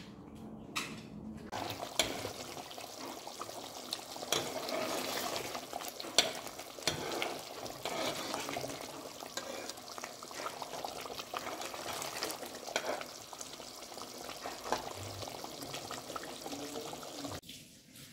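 Thick walnut and pomegranate stew (fesenjan) bubbling in a pot: a steady simmering hiss with frequent small pops as bubbles burst. It stops suddenly about a second before the end.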